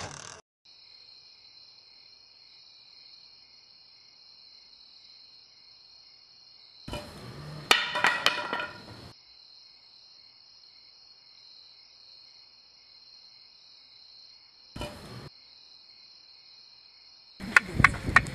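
Crickets chirping steadily at night, with a loud sudden sound about seven to nine seconds in, a brief one about fifteen seconds in, and a quick run of sharp taps near the end.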